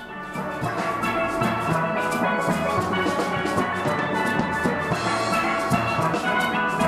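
Steel band playing a lively tune on steel pans, with drums keeping the beat; it swells in during the first half second.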